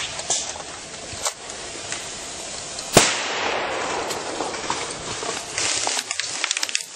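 Airsoft gunfire: a few scattered single shots, one sharp, loud crack about three seconds in, and a rapid full-auto burst of about ten shots a second near the end.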